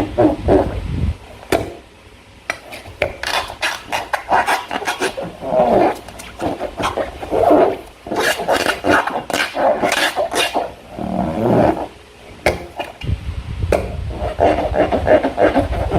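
Slime being squeezed and worked by hand: irregular wet squelches with many small crackling clicks.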